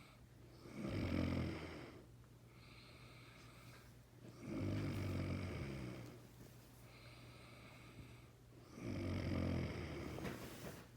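A man snoring in his sleep: three loud, low snores about four seconds apart, with quieter breaths between them.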